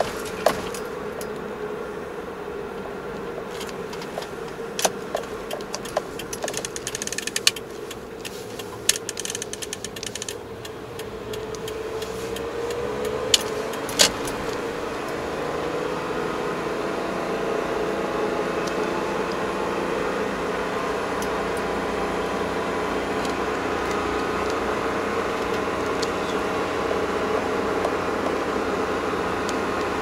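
Car engine and road noise heard from inside the cabin. The engine note rises and the sound gets louder about twelve seconds in as the car speeds up. Sharp clicks and small rattles come in the first half.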